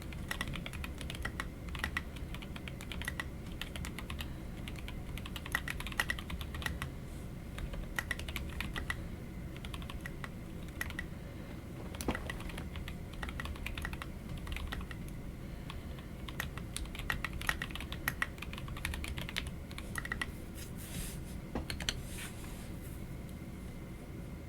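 Typing on a TKC Portico mechanical keyboard fitted with lubed Otemu Sky Blue switches and Signature Plastics SA-profile keycaps: a continuous, irregular stream of keystroke clacks.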